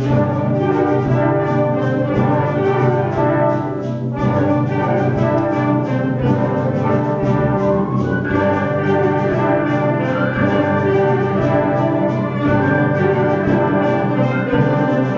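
Concert band playing, with brass instruments such as trumpets and trombones carrying the music.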